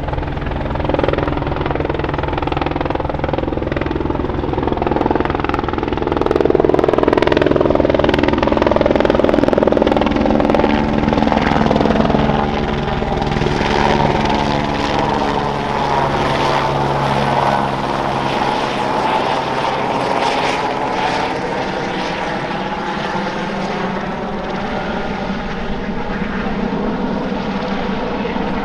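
Airbus AS350B3 Ecureuil helicopter, powered by a single Turbomeca Arriel 2B turboshaft, flying low overhead with a bambi bucket slung beneath; its rotor and turbine run continuously. The sound is loudest in the first half, and the pitch slides as the helicopter passes overhead about halfway through and moves away.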